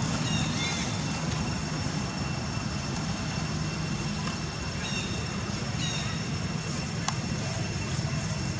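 Steady low outdoor rumble, like distant traffic, with a few short high chirping calls now and then and one sharp click about seven seconds in.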